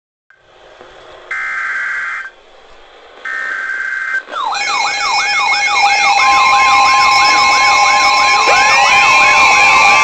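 Two short screechy data bursts of the Emergency Alert System header, then, about four seconds in, several weather alert radios going off together: rapidly repeating rising siren-like sweeps over steady alarm tones, with a long steady warning tone joining about six seconds in, signalling a Flash Flood Warning.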